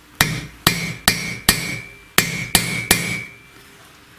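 Hammer tapping a driver to seat a valve stem seal onto its valve guide in a VAZ-21099 cylinder head: seven sharp metallic taps, four and then three, each with a short ring.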